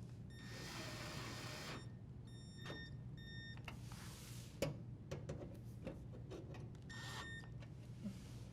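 A cordless drill driver running in short bursts, its motor whining over a hiss, as screws are driven, with scattered light clicks and knocks of parts being handled.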